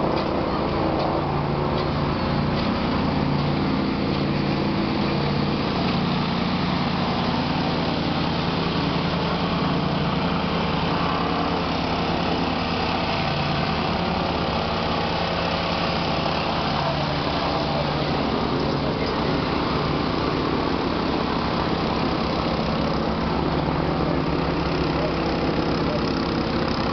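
Vibratory plate compactor's small engine running steadily.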